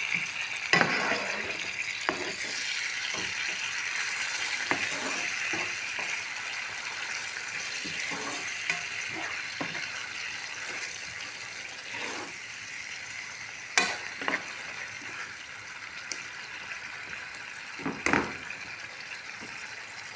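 Chunky tomato sauce sizzling in a pan while a spoon stirs it, scraping and knocking against the pan now and then, with a few sharper knocks about a second in and twice near the end.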